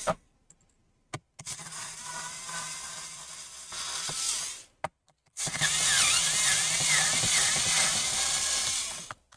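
Small electric screwdriver running as it backs screws out of a laptop's plastic back cover: two spells of motor whine, the second longer and louder, each cut off suddenly.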